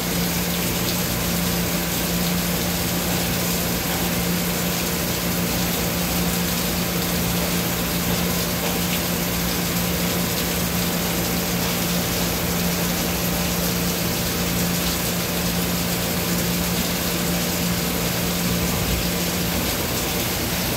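Doosan Puma MX1600ST CNC mill-turn lathe running its main spindle at a steady speed while coolant sprays across the chuck inside the machine enclosure: a constant hum under an even hiss of spray.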